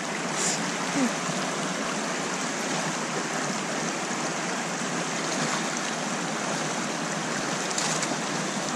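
Steady rushing of a shallow, rocky river running over stones, with brief splashes about half a second in and again near the end.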